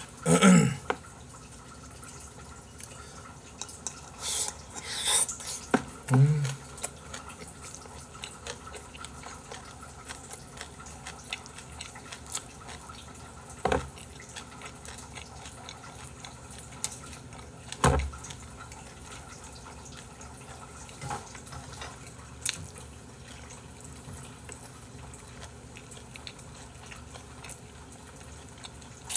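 Close-miked eating sounds: chewing and mouth noises, with a few short louder noisy bursts in the first seven seconds and two sharp knocks of tableware about four seconds apart midway through.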